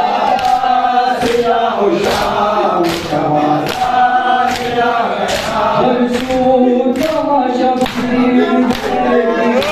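Men chanting a noha, a Shia mourning lament, in chorus, with sharp rhythmic slaps of chest-beating (matam) keeping time about one and a half times a second.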